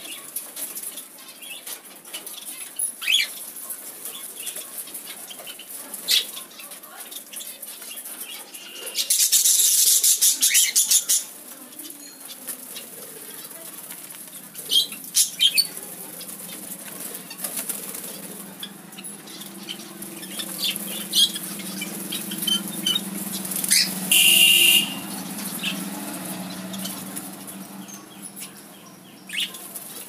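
Budgerigars and cockatiels fluttering their wings as they shift and fly about a wire aviary, with scattered sharp clicks and scratches of beaks and claws picking at raw corn cobs. Two longer, louder rushes of wingbeats come about nine and twenty-four seconds in.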